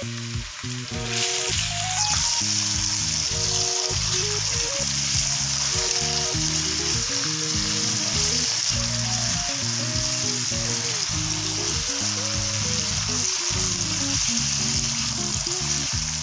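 Sliced onions and ginger-garlic paste sizzling in hot ghee in a steel pan as they are stirred with a silicone spatula. The sizzle gets much louder about a second in and then holds steady, over background music.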